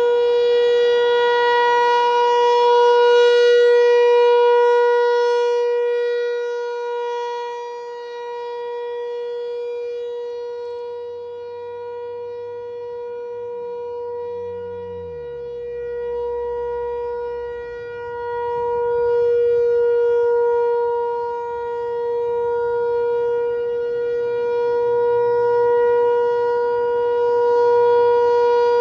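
ASC T-128 outdoor warning siren sounding its Alert signal: one steady, unbroken tone with strong overtones that swells and fades slowly in loudness.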